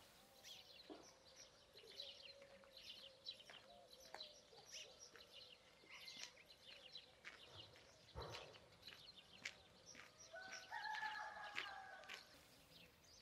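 Faint birdsong of many short high chirps, with a distant rooster crowing once, for about two seconds, near the end.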